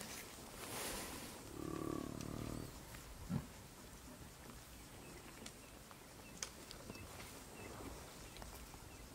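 A drawn-out wild animal call lasting about a second, near two seconds in, followed by faint short chirps and clicks.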